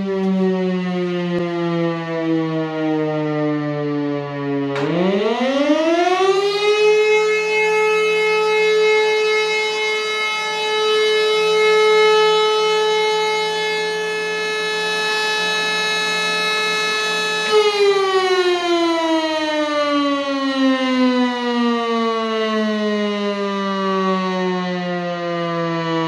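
Siemens E57 electric motor siren. Its tone is winding down at first, then the motor spins up about five seconds in and the pitch climbs quickly to a steady wail. It holds for about thirteen seconds, then the siren is switched off and the pitch falls slowly as the rotor coasts down.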